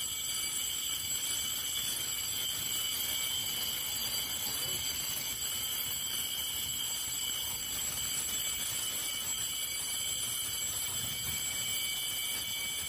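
Building fire alarm sounding continuously: a steady, high-pitched alarm tone.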